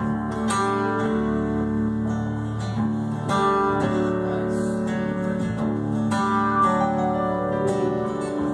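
Live band playing an instrumental passage between sung lines: strummed acoustic guitar leads, with a second guitar and upright bass.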